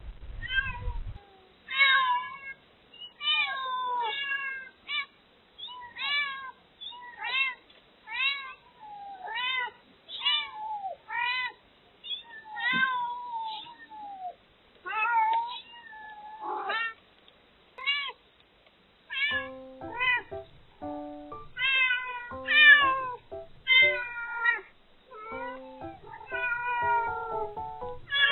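Cat meows repeated about once a second: a hidden kitten crying and its mother calling to it. Background music with a simple melody comes in about two-thirds of the way through.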